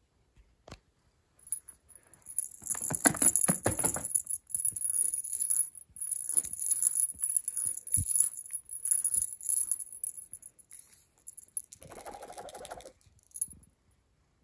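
A small jingle bell shaking and rattling in quick bursts as a cat bats at a wand toy, with knocks and a single soft thump about eight seconds in. A short lower-pitched sound about a second long comes near the end.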